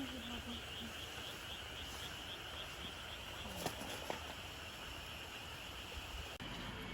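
An insect chirping steadily, about four chirps a second, over a constant outdoor hiss, with two faint clicks near the middle.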